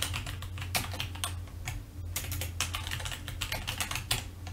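Typing on a computer keyboard: a quick run of key clicks with a brief pause about two seconds in, over a steady low hum.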